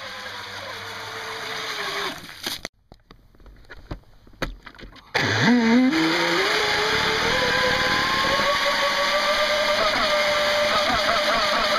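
Brushless motor of an RC jet boat whining, its pitch falling away for the first couple of seconds, then dropping out for about two and a half seconds. It comes back suddenly, the whine climbing fast and then holding high and steady with a slight waver. The motor runs on rusty bearings, which the owner says made it sound awful.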